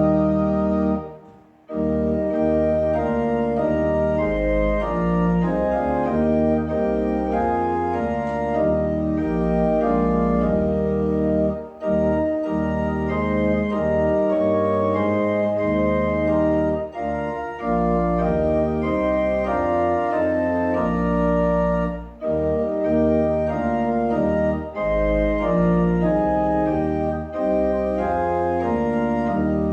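Church organ playing slow, sustained chords, with short breaks between phrases about a second in and again near 12 and 22 seconds.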